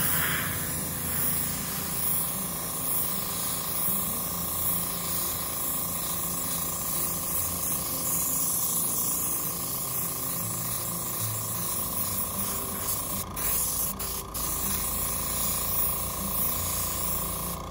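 Steady hiss of a Central Pneumatic airbrush spraying leather dye in long passes, with the low steady hum of the kit's small air compressor running underneath. The hiss cuts off near the end.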